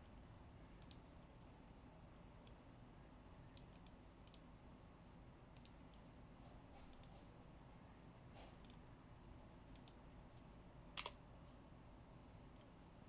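Faint, scattered sharp clicks, about a dozen at irregular spacing and some in quick pairs, the loudest near the end, over a low steady hiss.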